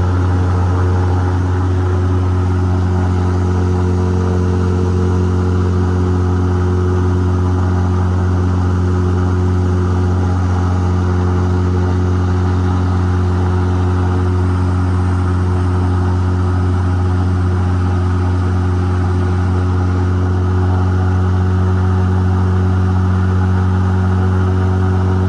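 Supercharged airboat engine and propeller running at a steady cruise, loud and unchanging in pitch.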